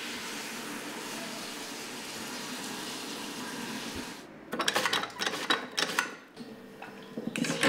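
Steady hiss of room noise. A little past halfway it gives way to a lever-action potato fry cutter being worked: a quick series of clattering metal strokes as potatoes are forced through its cutting grid.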